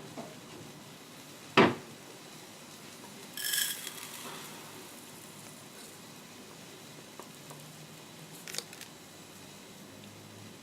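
Kitchen dishes and utensils knocking and clinking: one sharp knock about one and a half seconds in, a bright ringing clink of metal or glass about two seconds later, and a light tap near the end.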